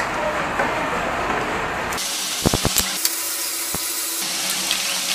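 Steady hissing background noise, with a quick cluster of small sharp clicks about halfway through and one more click shortly after, as parts are handled around the carburettor of a motorcycle engine that is not running.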